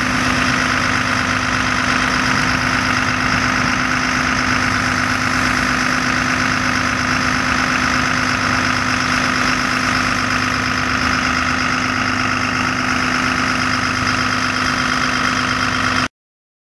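A fire engine's engine running steadily at idle, with a constant hum. It cuts off abruptly near the end.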